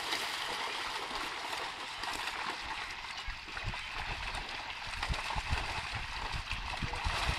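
Water splashing and churning as a mass of fish thrash inside a seine net being hauled through a pond. Irregular low thumps join in from about three seconds in.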